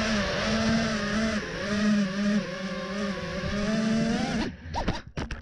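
FPV quadcopter's brushless motors and propellers whining, the pitch wavering with the throttle as it comes down on gravel. Near the end the motors give a few short blips and then stop. The pilot says the propellers sound a little funny, though he doesn't know which one.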